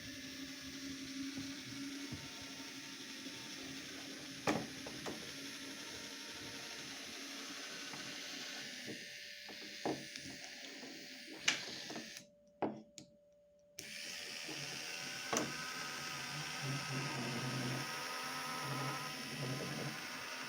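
Small electric motor turning the plastic gears and rotor of a K'nex model helicopter, running steadily with a few sharp clicks. The sound drops out briefly about two-thirds of the way through, then carries on.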